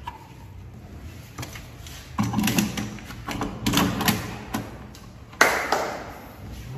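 A steel mortise lock being seated in the mortise in a wooden door's edge: clattering metal-on-wood taps and knocks come in a few quick clusters, and the loudest knock lands about five and a half seconds in.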